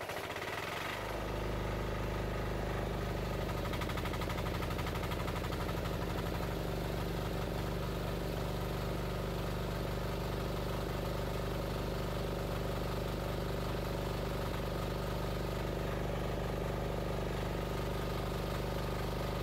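Rhinoceros XN08 mini excavator's engine running steadily. The engine runs fine, but the hydraulics build no pressure even with a newly fitted pressure relief valve, so nothing moves.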